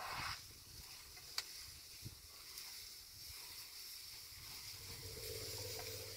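Faint, steady high hiss of outdoor background, with a couple of soft clicks and a low hum coming in about five seconds in.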